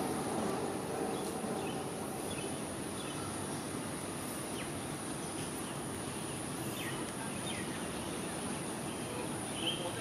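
Outdoor tropical ambience: a steady high-pitched insect drone over a constant rush of background noise, with a few short, faint chirps.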